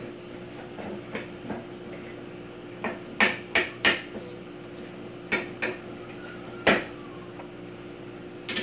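Kitchenware clattering: about seven sharp knocks of dishes or utensils set down or struck together. There is a quick run of four, then a pair, then a single knock, over a steady low hum.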